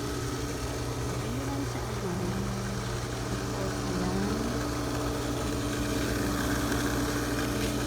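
Swimming pool pump motor running with a steady hum.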